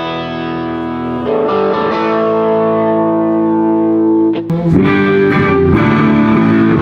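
Electric guitar through effects being strummed during a soundcheck, with chords left to ring and a change of chord about a second in and again near the end.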